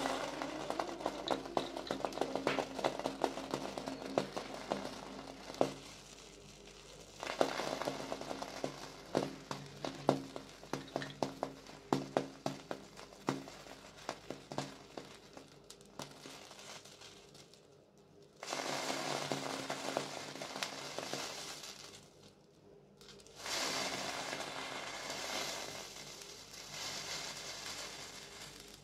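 Red-hot kitchen knife blade melting its way into a clear gel slime stress ball: sizzling with many sharp crackles and pops, then two spells of steadier hissing in the latter part.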